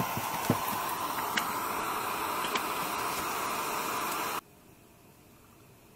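Steady hiss of a portable gas stove's flame, with a few light clicks in the first seconds; the hiss cuts off abruptly a little past four seconds in, leaving only a faint background.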